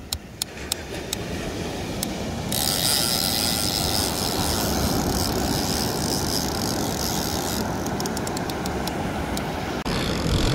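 Steady rush of surf and wind on the microphone on a beach, turning brighter and hissier for a few seconds in the middle, with runs of sharp, quick clicks near the start and again near the end.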